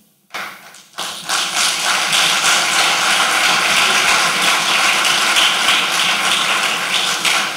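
Audience applauding: a few claps just after the start, then steady, dense clapping from about a second in.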